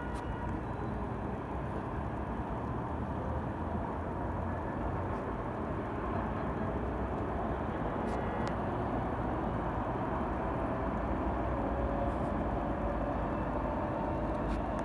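Steady low rumbling background noise, with a couple of faint clicks about eight seconds in.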